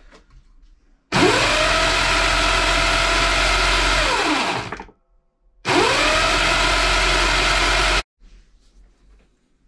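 12-volt electric motor of a home-built motorcycle roller starter, switched on twice and driving its roller chain with the rollers unloaded. Each time it spins up with a rising whine and then runs steadily. The first run winds down after about three and a half seconds; the second cuts off suddenly.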